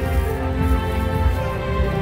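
Loud music with several held tones over a strong, pulsing bass.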